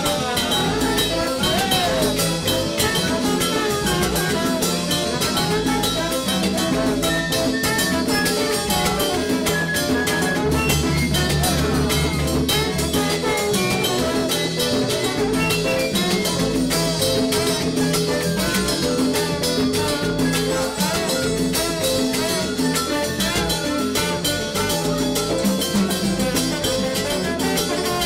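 A salsa band playing live, with violin, trombones and drum kit over a steady dance beat.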